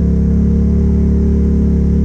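ATV engine running at a steady speed: a loud, even drone that holds one pitch.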